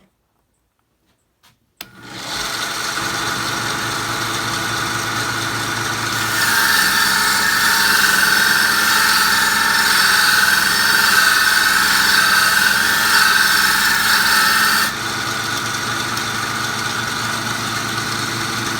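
Belt sander fitted with a Scotch-Brite belt starts up about two seconds in and runs steadily. From about six to fifteen seconds in, a steel draw knife blade is held against the belt, adding a louder grinding. The blade then comes off and the sander runs free.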